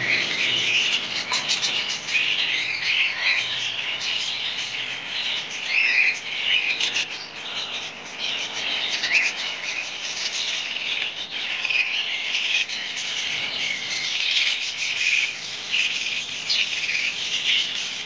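Several parrot chicks in a nest box giving continuous raspy, overlapping chirping calls.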